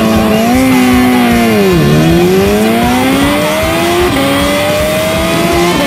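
Drag-racing motorcycle engine held at steady revs on the start line, then launching. The revs sag as the drive takes up, then climb steadily, dropping sharply at an upshift about four seconds in and again at a second upshift near the end.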